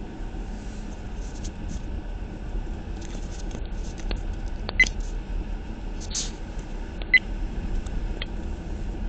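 Lada Vesta's yellow polyurethane front anti-roll bar bushings squeaking in the frost, over a steady low rumble. Short faint squeaks come and go, with two sharp high squeaks about five and seven seconds in. The cold-stiffened polyurethane bushings are squeaking against the bar.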